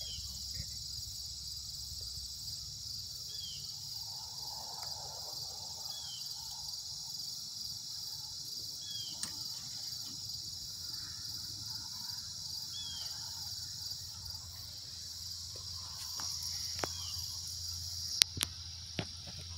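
Steady high-pitched insect chorus. A short faint chirp repeats every few seconds, and a few sharp clicks come near the end.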